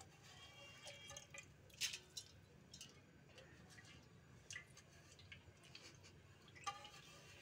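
Near silence: a low steady hum with a scatter of faint, irregular ticks and light clicks.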